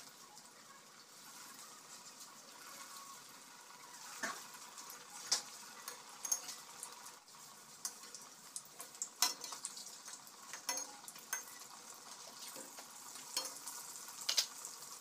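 Breaded jackfruit-seed chops frying in hot refined oil in a kadai: a faint sizzle, with scattered sharp clicks and pops that grow busier from about four seconds in.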